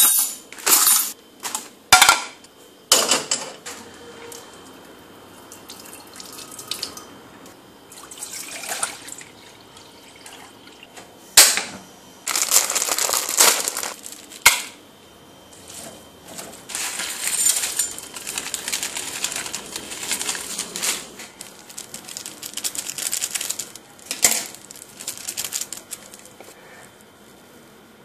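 Kitchen handling noises: a series of sharp clinks and knocks, then longer stretches of crinkling and tearing as foil seasoning sachets from an instant mee goreng pack are torn open and squeezed out onto a plate.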